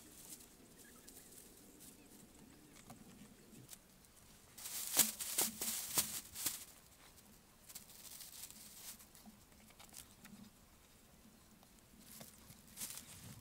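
Dry grass thatch rustling and crackling as it is handled and tied onto a bamboo roof frame, with a flurry of crisp rustles about five seconds in and a shorter one near the end.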